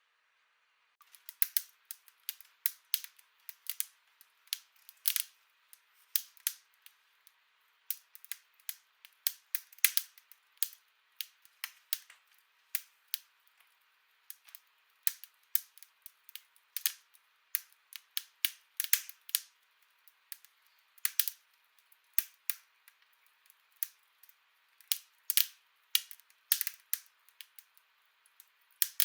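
Wood fire crackling in an indoor fireplace: irregular sharp pops and snaps, several a second, over a faint hiss.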